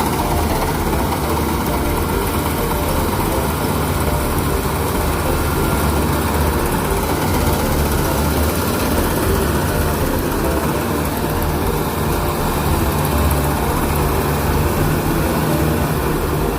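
Kubota rice combine harvester's diesel engine running steadily at a constant speed.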